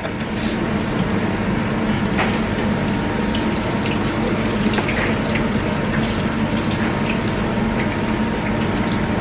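Hot oil in a deep fat fryer bubbling and sizzling steadily around freshly dropped cheese-filled oatcake rolls, with small crackles over a steady low hum.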